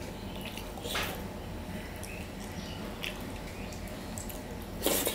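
Fingers mixing and mashing rice with lentil dal and mashed potato on a steel plate: soft wet squishing with small clicks, and a louder sharp noise near the end. A steady low hum runs underneath.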